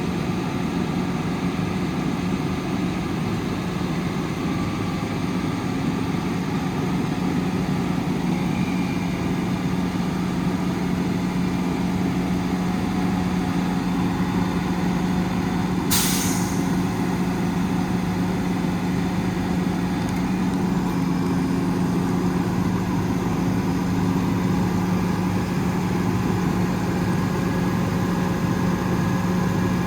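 Cummins ISL 8.9 diesel engine running steadily at raised idle. A brief sharp hiss comes about halfway through.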